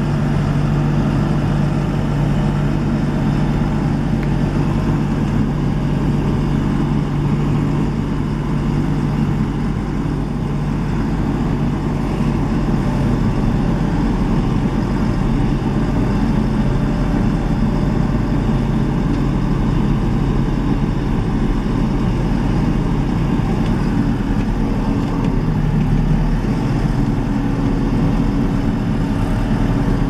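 Backhoe loader's diesel engine running steadily, heard from inside the cab as it drives, its pitch shifting a little a few times.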